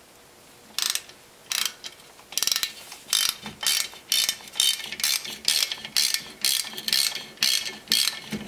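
Ratchet wrench with an Allen-bit driver clicking in quick back-and-forth strokes, starting about a second in, in short bursts about twice a second, as it backs out the brake rotor's retaining screw from the wheel hub.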